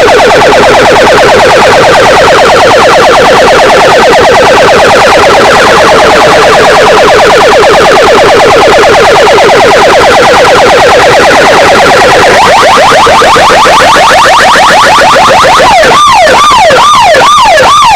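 Electronic siren effect played very loud through a DJ sound system: a fast warbling sweep for about twelve seconds, a second fast warble joining in, then slower rising-and-falling wails near the end.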